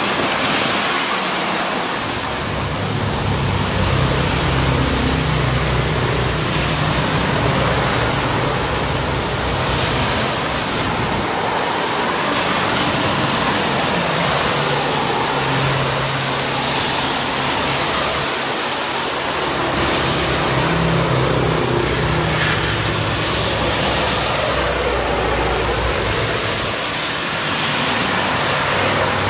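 Road traffic going by: a constant rush of tyre and road noise, with heavy vehicles' engines humming past one after another, each swelling and fading over a few seconds.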